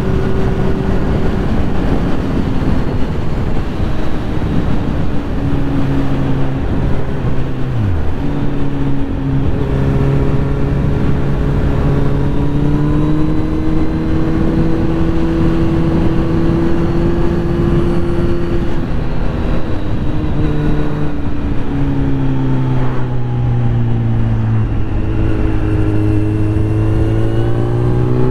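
Motorcycle with an aftermarket Akrapovic exhaust running at road speed, heard from the rider's seat with wind rushing over the microphone. The engine note holds steady, drops as the bike slows about two-thirds of the way in, then rises again near the end as it accelerates.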